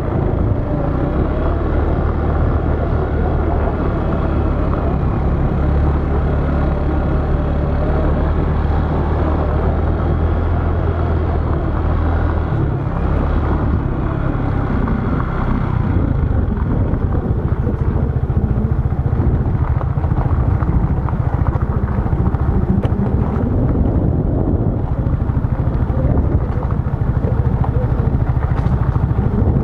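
A motorbike engine running steadily on the move, its note shifting about halfway through.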